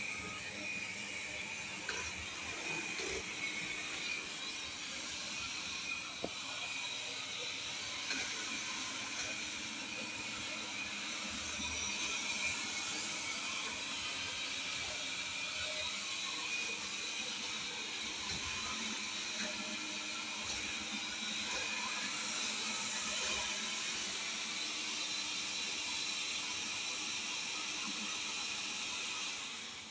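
Viomi V3 robot vacuum running: a steady whirring hiss from its suction fan and brushes, with a few light knocks, cutting off near the end.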